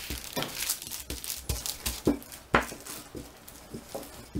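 Parchment paper rustling and crinkling under a wooden rolling pin as pastry dough is rolled out between two sheets, with irregular soft knocks and a couple of louder thumps a little past halfway.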